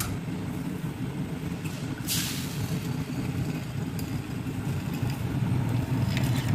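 Steady low rumble from the kitchen stove area while a gas burner is lit under a frying pan. A brief crackly hiss comes about two seconds in as an egg is cracked over the pan.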